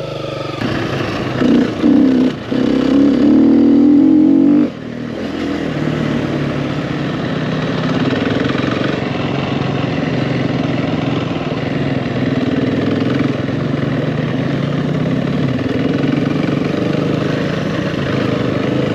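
Dirt bike engine running as the bike is ridden. It revs hard for about three seconds shortly after the start, drops off suddenly as the throttle closes, then runs steadily for the rest.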